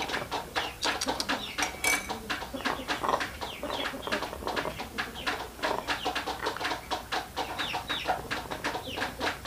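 A rooster sick with a snoring respiratory cold making quick, irregular short clucks, several a second, as it is spoon-fed warm lime-and-salt water.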